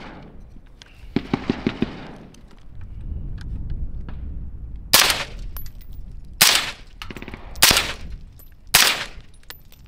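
Four suppressed rifle shots from an AR-15 firing supersonic .223 55-grain rounds through a Silencer Co Omega 36M suppressor, spaced about a second and a quarter apart from about halfway through, with a fifth shot just at the end. The shooter, listening with one ear uncovered, finds it hella quiet and judges it hearing safe.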